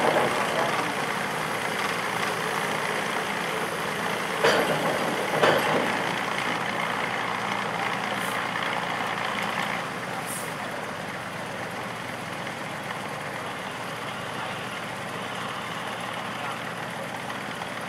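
Galloping Goose rail motorcar engine running steadily as the Goose rides the hand-pushed turntable, a little quieter after about ten seconds. Two clunks come about four and a half and five and a half seconds in, and two brief high squeaks follow.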